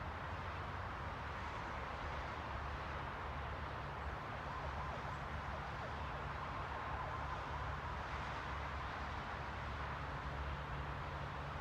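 Steady ambient noise with a low rumble underneath, and a faint thin high tone drifting in and out in the middle.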